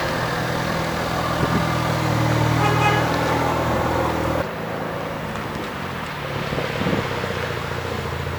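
Turbocharged Hyundai Veloster driving on the road: a steady engine hum with road noise. It eases to a lower, quieter level about halfway through.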